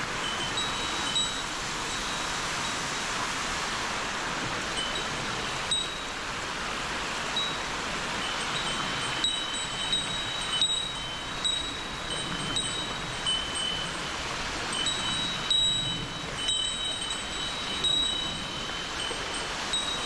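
Steady rush of flowing water, with a small bell tinkling in short, irregular chimes over it.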